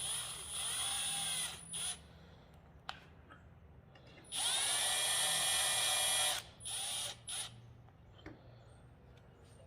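Cordless drill with a cup hook chucked in it, run in trigger bursts to spin brass cup hooks tight into a wooden board. One longer run of about two seconds comes near the middle, with shorter spins before it and brief blips after. The motor's whine rises and falls as it speeds up and slows down.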